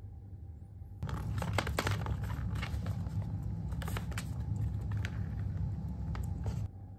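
Ball rattling and clicking around the track of a circular plastic cat track toy as kittens bat at it, with irregular sharp knocks over a low rumble. It starts about a second in and cuts off abruptly shortly before the end.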